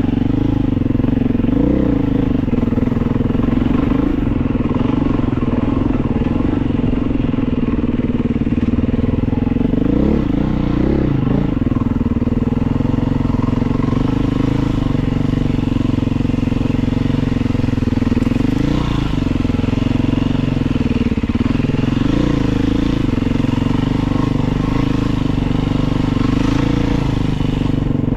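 Beta 500 dirt bike's single-cylinder four-stroke engine running continuously while riding, its pitch rising and falling with the throttle, with brief revs about ten and nineteen seconds in.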